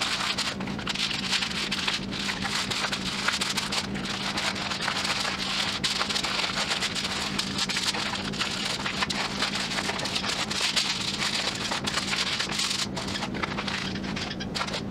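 Aluminium foil lining a baking pan crinkling and rustling as a paper butter wrapper is rubbed over it, a dense crackle that thins out near the end.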